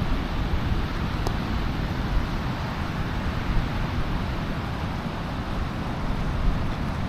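Pacific surf washing onto the beach, with wind buffeting the microphone in a steady low rumble.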